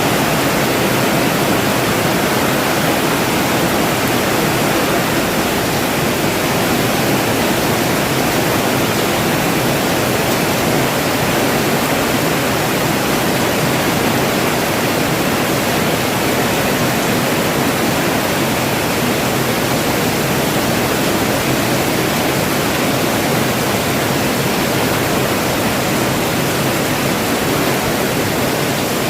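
Steady heavy rain falling, a dense even hiss with no separate drops or pauses.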